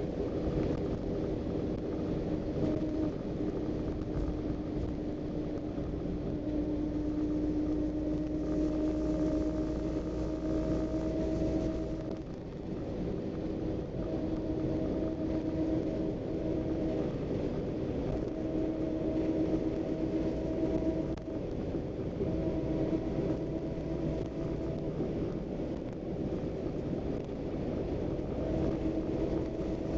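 Scania Irizar Century coach heard from inside the passenger cabin while under way: a constant low rumble of engine and road, with a pitched drone that climbs slowly and drops back several times, around 12 seconds in and again over the following stretch, as the coach pulls through its gears.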